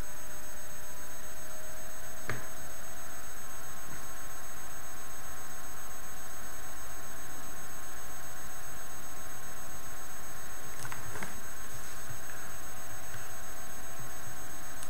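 Steady background hiss with several faint, constant high-pitched whining tones, like a microphone's noise floor. A couple of faint clicks come about two seconds in and again around eleven seconds.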